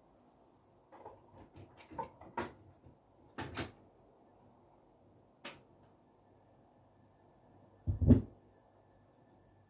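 Handling noises at a radiogram as a record is put on the turntable: a run of light clicks and knocks, a sharp click about halfway, and a heavier thump near the end, the loudest of them.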